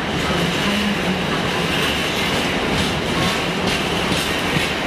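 Empty intermodal container flat wagons of a freight train rolling past at low speed. The wheels knock irregularly over the track under a steady high squeal.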